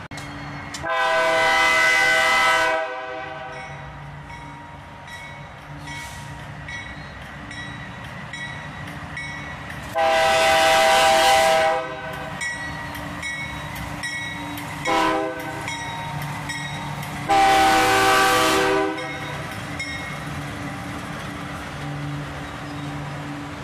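Air horn on a Union Pacific GE AC4460CW diesel locomotive, sounding the grade-crossing signal: two long blasts, a short one and a final long one, over the steady drone of the approaching locomotives' diesel engines.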